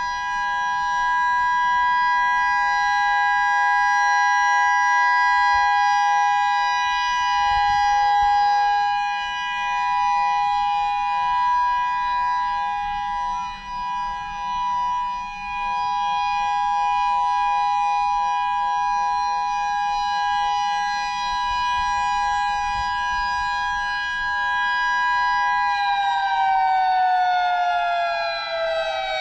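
Federal Signal EOWS 612 electronic outdoor warning siren sounding a steady two-note tone during a test, its loudness swelling and dipping slightly as the rotating horn sweeps around. About 26 seconds in, the pitch starts gliding steadily downward as the siren winds down.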